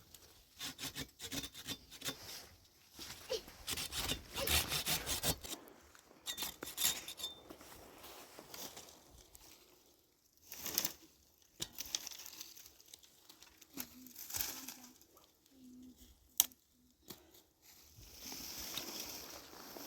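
A quick series of rasping, scraping strokes, like sawing or rubbing on wood, for the first seven seconds or so. After that come scattered knocks and rustles, with one sharp click near the end.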